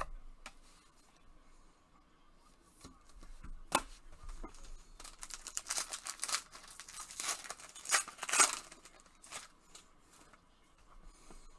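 A trading-card pack wrapper being torn open and crinkled by gloved hands, in a run of ripping and rustling sounds that is loudest a little past the middle, with a single sharp click before it.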